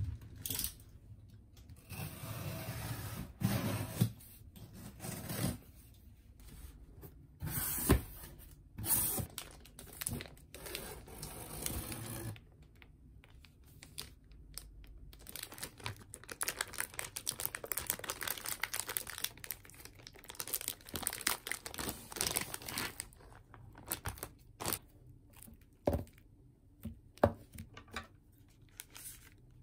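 Plastic packaging and a cardboard box being handled: irregular rustling of a plastic-wrapped pack of small stretched canvases, with occasional sharp knocks and clicks.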